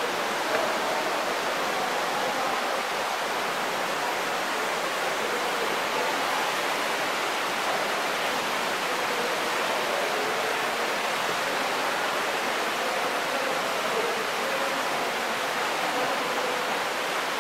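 Steady rushing and splashing of water from a fountain jet pouring into an indoor thermal pool, echoing in the hall.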